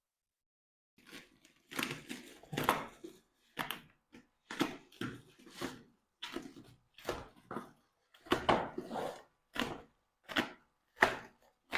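Plastic packaging and bubble wrap being cut and pulled off a new vacuum cleaner: a string of irregular crinkling and tearing rustles, each a fraction of a second long, about two a second, starting about a second in.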